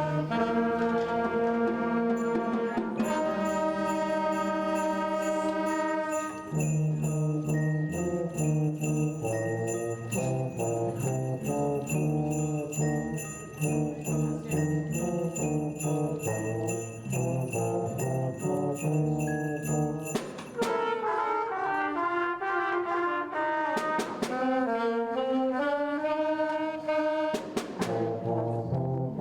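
A band playing a holiday piece, brass instruments carrying the tune, with sleigh bells shaking in a steady rhythm through the middle of the passage.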